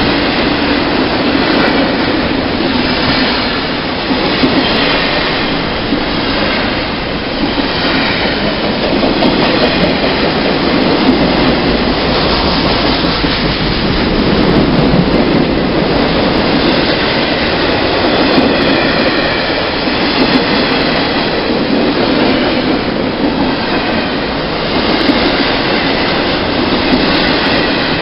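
A long freight train rolling past close by: a steady, loud rumble and clatter of steel wheels on the rails, with a faint high squeal now and then.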